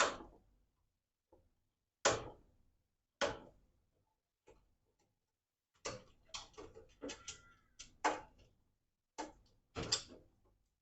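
Sharp clicks and snaps of hand tools and wiring being worked, four spaced about a second apart, then a quicker run of them in the second half, with a faint brief squeak about seven seconds in.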